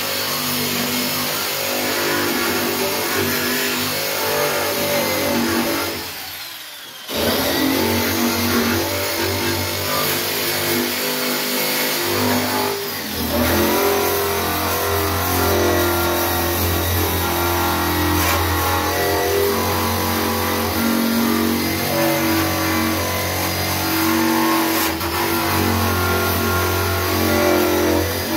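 Handheld rotary power tool running under load as it strips paint from a sheet-metal truck dash, its pitch shifting as the pressure on it changes. It eases off about six seconds in and spins back up about a second later.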